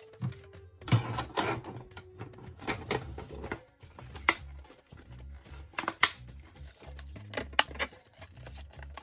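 Hard plastic clicks and knocks as diorama wall panels with window inserts are handled and pressed together: a dozen or so sharp, irregular taps, over faint background music.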